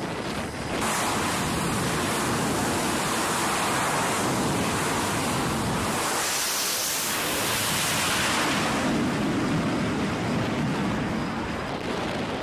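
Steady rushing roar of a carrier flight deck during catapult launches: jet engine noise and venting catapult steam, with wind on the microphone. It grows louder about a second in and turns brightest and hissiest about six seconds in as an F/A-18 Super Hornet is launched, then settles into a deeper rumble.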